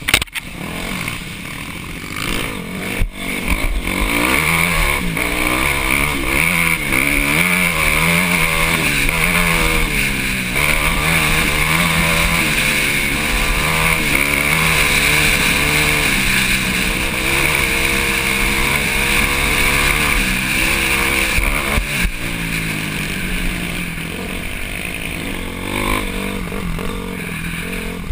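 Dirt bike engine running under load, its pitch rising and falling again and again as the throttle is worked along a bumpy trail. A few sharp knocks and clatters from the bike over rough ground come in the first three seconds and again about 22 seconds in.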